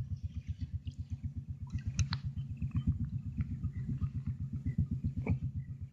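Small boat engine running slowly, a steady, even low pulsing of about ten beats a second, with a few faint clicks over it.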